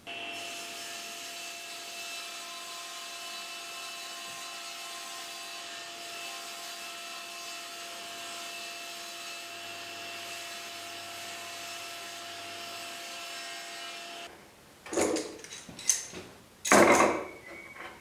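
Table saw with a red blade ripping a white melamine-faced sheet lengthwise: a steady cutting sound with a few constant tones. It stops abruptly about fourteen seconds in and is followed by a few loud knocks and clatters.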